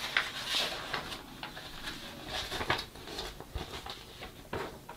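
Paper rustling and crackling as the pages of a Gunpla model kit's instruction manual are handled and turned, a string of short irregular rustles with a few sharper clicks.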